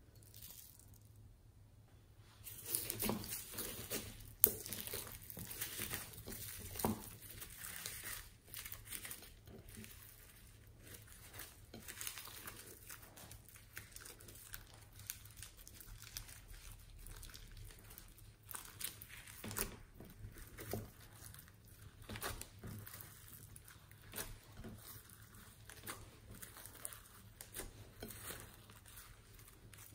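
Hands kneading and stretching white slime mixed with small foam beads: sticky squelching with dense crackling and crunching of the beads. It is busiest a few seconds in, with one sharp pop, then settles into softer, steady kneading.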